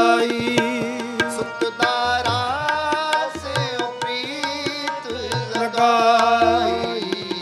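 Sikh kirtan accompaniment: harmonium holding chords while tabla keeps a steady rhythm, between sung lines of the hymn.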